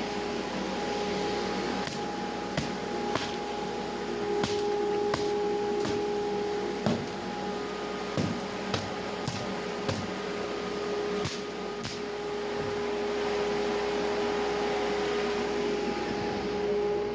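Shop dust-collection fan running with a steady hum and a constant whine. Irregular sharp knocks and taps sound over it, about a dozen in all.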